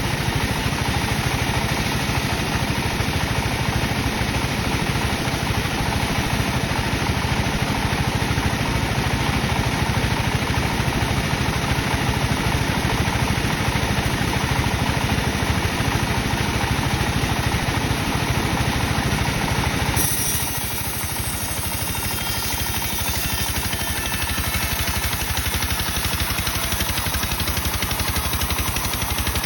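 Sawmill machinery running steadily with a low engine-like drone. About twenty seconds in, the sound changes abruptly to a brighter, slightly quieter tone.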